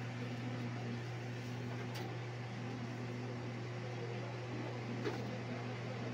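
Steady low hum and fan hiss from a running computer's cooling fans, with two faint light ticks about two and five seconds in.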